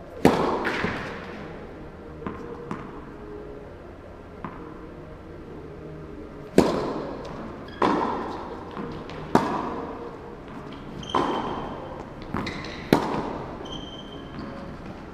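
Tennis racket striking the ball: a hard serve hit near the start, a few faint knocks from the far side of the court, then a rally of loud strikes and bounces about one to one and a half seconds apart from about halfway through. Each impact echoes in the large indoor hall.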